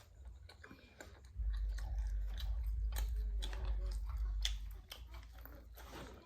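Close-miked chewing and biting, with wet, crackly mouth clicks and smacks. A low rumble sits underneath from about a second and a half in until near five seconds.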